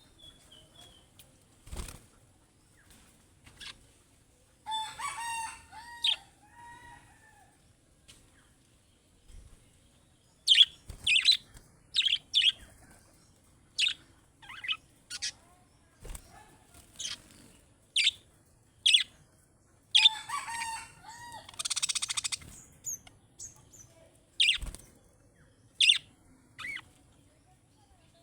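Budgerigars calling: short, sharp chirps about once a second, with two longer warbling calls about 5 and 20 seconds in, and a brief rustling flutter around 22 seconds.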